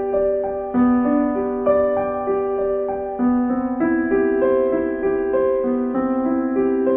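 Background piano music: a slow melody of held notes, each changing every half second to a second or so.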